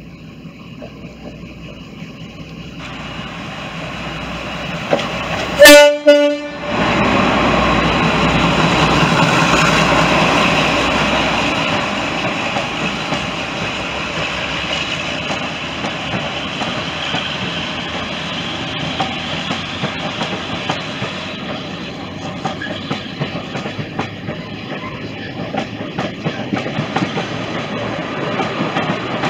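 A Class 52 'Western' diesel-hydraulic locomotive approaching at speed sounds its horn once, briefly, about six seconds in; this is the loudest moment. It then runs past close by with its engines working hard, followed by the steady rumble and clickety-clack of the coaches going by.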